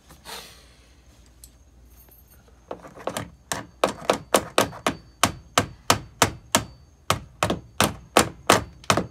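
Hammer tapping repeatedly on a bent metal mounting bracket of a window air conditioner, about three sharp strikes a second, starting a few seconds in.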